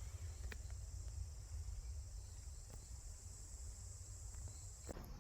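Crickets chirring in a steady, high, even drone that stops about five seconds in, over a low rumble.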